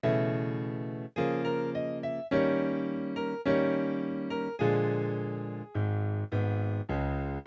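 Background music: keyboard chords struck about once a second, each ringing and dying away before the next, coming a little quicker near the end.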